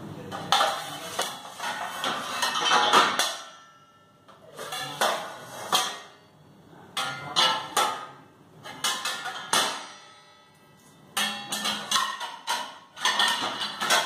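Stainless steel plates and pans clattering and clinking against each other and the dishwasher's wire rack as they are stacked upright in the lower rack. The clatter comes in bursts of sharp strikes with a little metallic ringing, with short pauses between.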